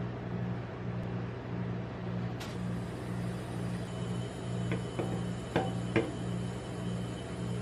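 Steady low mechanical hum that pulses, with four light knocks and clicks in quick succession in the second half as items are handled over the steel cold plate; the last two knocks are the loudest.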